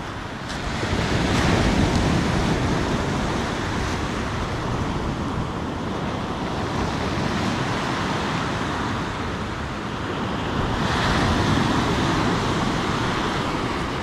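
Surf breaking and washing over a pebble beach in a steady, noisy roar. It swells louder as a wave comes in, about a second and a half in and again about eleven seconds in.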